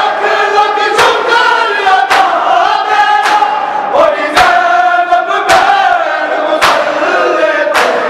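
A crowd of men chanting a mourning lament (noha) in unison while beating their chests together in matam. About seven sharp, loud slaps land at a steady beat of roughly one a second.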